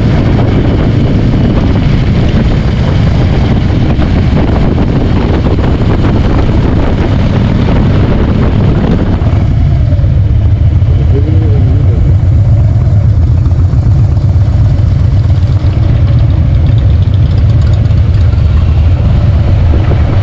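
Motorcycle riding on the road: a loud, steady rumble of engine and wind on the microphone, heaviest in the low end. The hiss in the upper range eases about nine seconds in.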